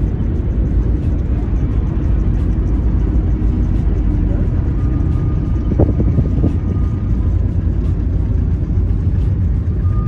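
A car driving along the road: a steady, loud low rumble of engine and road noise that starts abruptly.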